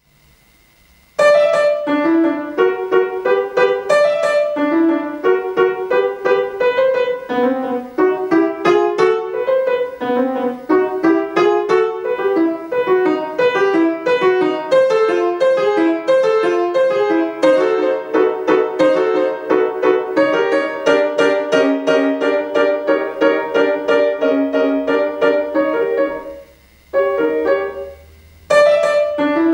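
Grand piano played solo: a lively run of many short notes, beginning about a second in and breaking off briefly twice near the end before carrying on.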